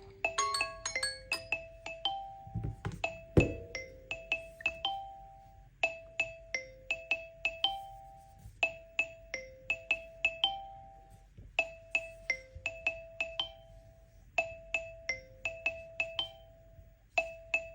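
Smartphone tone looping: a short marimba-like phrase of struck, ringing notes that repeats about every three seconds. A low thump sounds about three seconds in.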